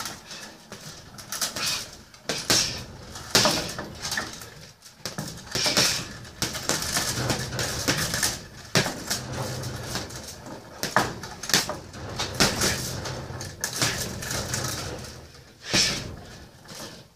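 Punches landing on a hanging heavy bag in irregular combinations, each a sharp thud, sometimes several in quick succession.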